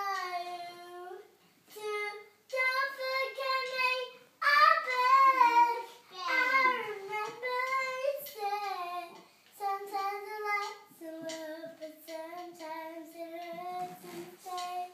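A young girl singing unaccompanied, holding long notes with short breaths between phrases; her voice is loudest a little under halfway through.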